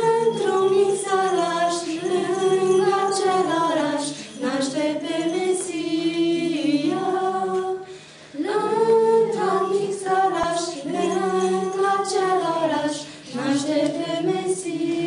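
A group of young women singing a Christmas carol a cappella in long sung phrases, with a short break between phrases about eight seconds in.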